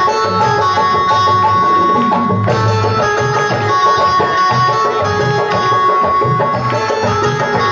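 Devotional folk music: an electronic keyboard holding a steady melody over a running hand-drum rhythm.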